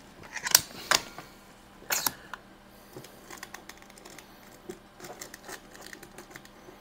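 Metallic clicks of a Gamo 126 Super Match pellet rifle's action being worked and loaded: a few sharp clicks in the first two seconds, then faint small handling ticks.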